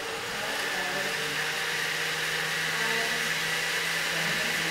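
Countertop electric blender running at speed, blitzing strawberries, banana, mango, juice and yogurt into a smoothie: a steady motor hum under the churning of the contents.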